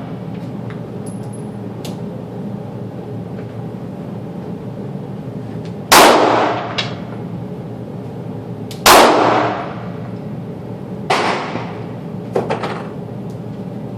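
Glock 26 9mm pistol fired twice, about three seconds apart, each shot sharp with a short echoing tail, followed near the end by a couple of fainter sharp bangs.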